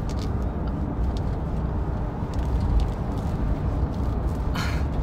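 Steady road and engine rumble of a moving car, heard from inside the cabin, with a few faint ticks and a short hiss-like burst near the end.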